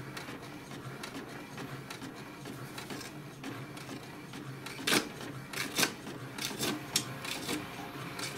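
HP DeskJet 2130 inkjet printer printing a colour page: a steady mechanical whirr of the print carriage and paper feed. From about halfway through there is a run of sharp clicks.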